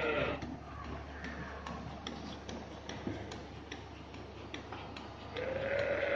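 Milking machine pulsator clicking in a quick rhythm over the steady low hum of the vacuum pump while the teat cups are on the cow. A short animal call sounds near the end.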